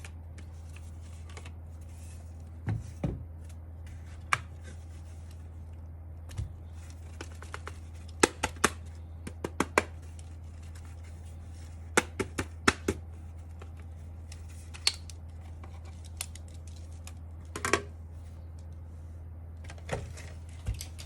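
Irregular sharp plastic clicks and clacks from an Akko mechanical keyboard being worked on, single and in quick clusters of two to four, over a steady low hum.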